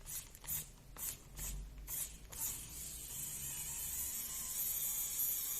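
A few light clicks, then from about two and a half seconds in a Wow Stick electric precision screwdriver's small motor running steadily with a faint hiss, undoing a screw in the RC car's plastic chassis.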